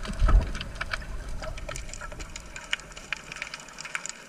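Underwater sound picked up by a submerged camera: a dense, irregular crackle of sharp clicks, with a low rumble of moving water that thumps loudly about a third of a second in and dies away after about three and a half seconds.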